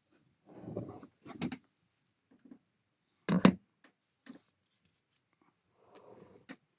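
Handling noises: short bursts of rubbing and scraping, with one sharp knock about three and a half seconds in.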